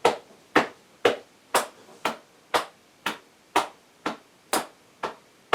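Body percussion: hand slaps on the chest in the hollow below the shoulder alternating with finger snaps on the off-beats, an even beat of about two strokes a second.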